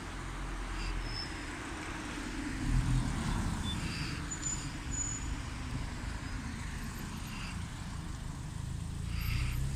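Road traffic: cars driving past on a street, a steady rumble of tyres and engines, swelling as one car passes close about three seconds in.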